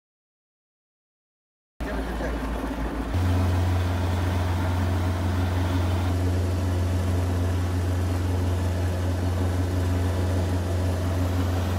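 Silence for the first two seconds, then a fishing boat's engine running steadily under way: a constant low drone over a rushing hiss.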